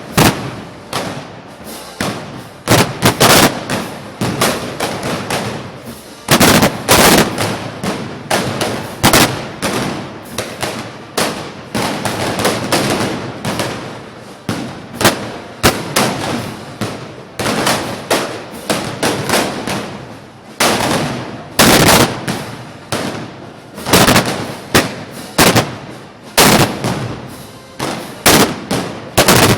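Dense, irregular gunpowder bangs, a few each second, some overlapping, each with a short echoing tail and loud clusters now and then, typical of the blank arquebus and blunderbuss fire of a Moros y Cristianos festival.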